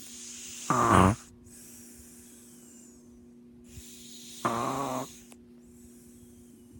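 A person snoring: two loud, nasal, duck-like snorts about three and a half seconds apart, each coming after a softer, hissing breath.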